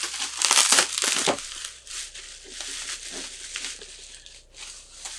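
Plastic wrapping crinkling and rustling as it is handled and pulled off a wrapped item. It is loudest in the first second and a half, then gives way to softer, scattered rustling.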